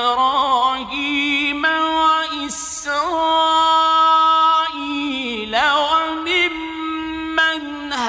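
A male Quran reciter chanting Arabic verses in a slow, melodic recitation style. He holds long notes decorated with quick wavering turns and pauses briefly about two and a half seconds in.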